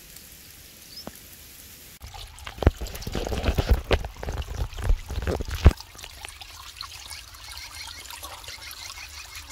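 Shallow muddy water trickling and pouring down over a low step in a drained mud channel. From about two to six seconds in there is a quick run of irregular splashes and slaps.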